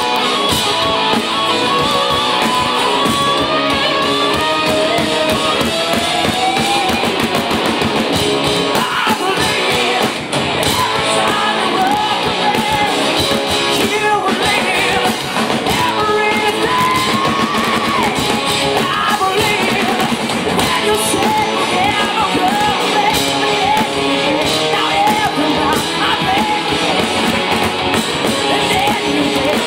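Hard rock band playing live and loud: a woman singing lead over distorted electric guitars, bass and drums.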